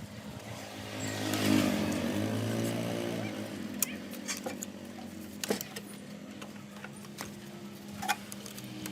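An engine running with a steady hum that swells louder for a couple of seconds about a second in, with scattered sharp metallic clicks.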